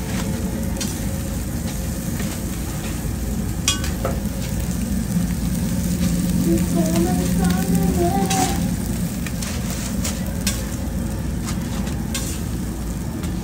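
Picadas sizzling on a hot flat-top griddle, with a few sharp clacks of a metal spatula scraping and lifting them, over a steady low hum.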